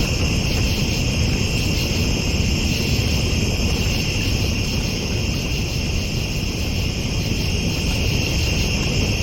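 Steady, high-pitched chorus of night insects chirring continuously, over a low, even rumble.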